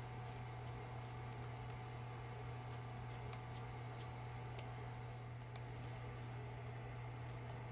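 Faint, irregular small clicks and ticks from a precision screwdriver turning the tiny screws of a camera lens's bayonet mount, over a steady low hum.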